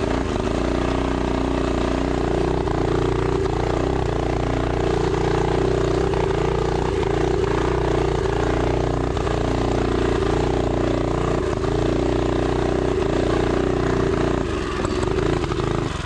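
Mini bike's small single-cylinder four-stroke engine running hard at steady, nearly unchanging revs while climbing a dirt hill, with a brief dip near the end. The engine is down on power in the thin high-altitude air, the rider calls it altitude sickness, and the gearing is too tall for the climb.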